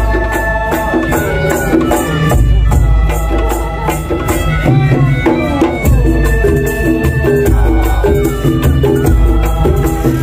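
Madurese ul daul parade band playing live through the cart's loudspeakers: loud, heavy deep drum beats under a held melody line, with fast, evenly spaced percussion ticking above.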